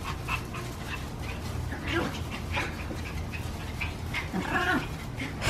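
Two small dogs play-fighting, with scattered short dog noises and one brief wavering whine about four and a half seconds in.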